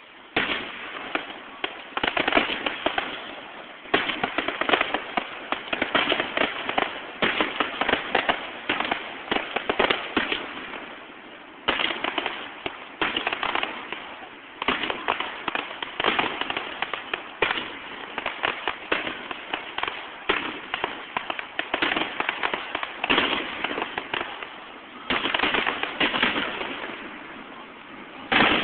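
Fireworks display bursting in quick, overlapping volleys, a continuous rapid crackle of bangs with sudden loud shots every second or so.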